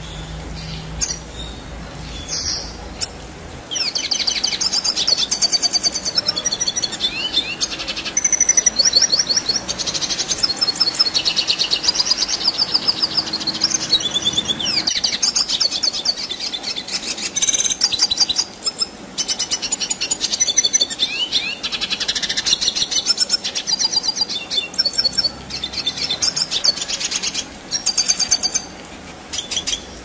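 Red siskin singing a long, continuous twittering song of rapid rolling trills and chatters, starting about four seconds in.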